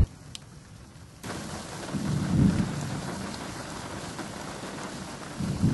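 Steady rain hiss that comes in suddenly about a second in, with a low rumble of thunder swelling about two seconds in.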